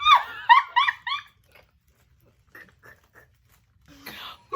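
A small dog yapping in quick high-pitched barks, about three a second, stopping a little over a second in, followed by a few faint clicks.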